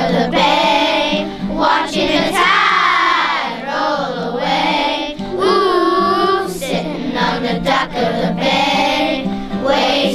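A group of children singing a song together, with musical accompaniment.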